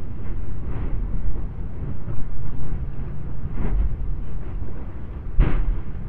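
Lava fountain in the Litli-Hrútur eruption crater: a continuous deep rumble broken by sudden bursts as the lava spatters, the strongest burst near the end. The uploader calls it the thunderous noise of the raging lava.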